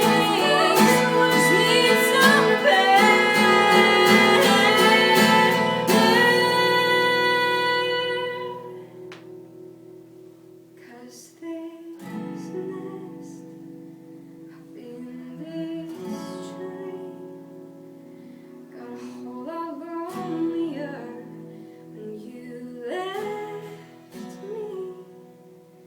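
A woman singing her own song to acoustic guitar. She holds a long note that fades out about eight seconds in, and then the accompaniment plays on quietly as an instrumental break.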